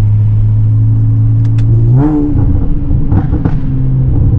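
Honda Accord's 3.5-litre V6 running loud through catless downpipes (RV6 precat deletes): a steady drone, a quick rise in revs about two seconds in, then a second or so of crackling burble pops from the pop tune before it settles to a steady, slightly higher note.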